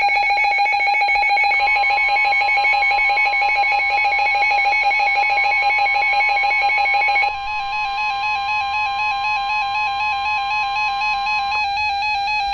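Electronic music of sustained, rapidly pulsing synthesized tones that thins out about seven seconds in.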